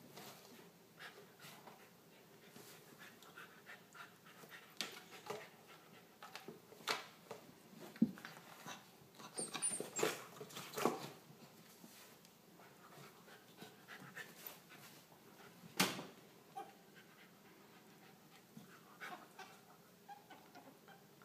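Welsh corgi puppy panting as it play-wrestles a ferret on a blanket, with scattered short rustles and knocks from the scuffle, busiest about ten seconds in and with a sharp knock near sixteen seconds.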